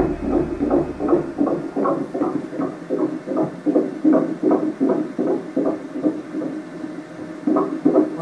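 Fetal heartbeat played through the speaker of an Aloka ultrasound machine's Doppler: a rapid, regular pulse of about three beats a second.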